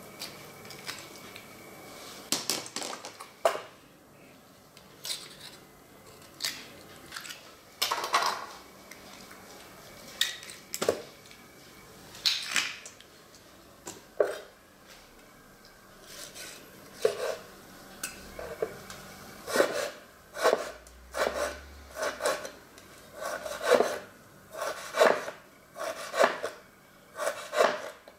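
Scattered clinks and scrapes of abalone shells against a stainless steel bowl as the abalone are cleaned, then a kitchen knife slicing abalone on a wooden cutting board, knocking the board about once a second from about halfway in.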